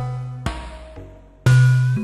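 Eurorack modular synthesizer patch built around an E352 wavetable oscillator and a Basimilus Iteritas Alter percussion voice, playing a sequence of pitched electronic notes over a low bass tone. A new note strikes about half a second in and again, louder, near the end, each with a sharp attack and a decay.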